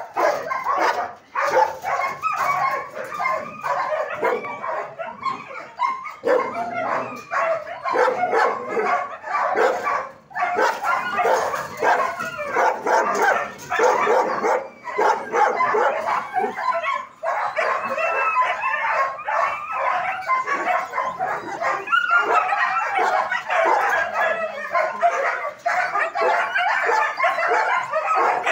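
Several kennelled dogs, German shepherds among them, barking and yelping continuously, their calls overlapping.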